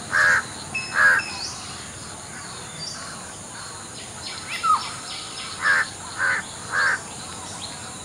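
Harsh, caw-like bird calls: two short calls near the start, then three more in a quick evenly spaced run about five and a half seconds in. Fainter chirps and a short falling whistle from other birds sound between them.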